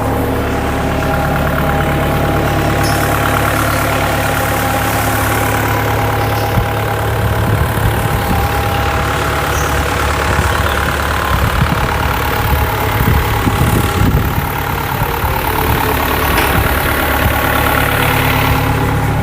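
Caterpillar 305 mini excavator's diesel engine running at a steady idle, turning rougher and less even through the middle stretch before settling again near the end.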